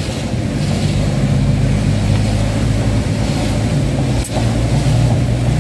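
Car driving on a wet road, heard from inside the cabin: a steady low engine and road drone with tyre hiss.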